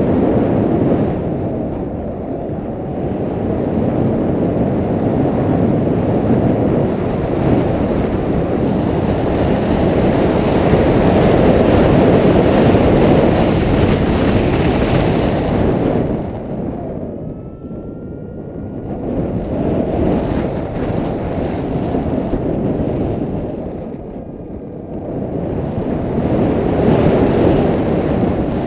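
Wind buffeting a GoPro's microphone in paraglider flight: a loud, low rumble that swells and eases, dropping away twice briefly in the second half.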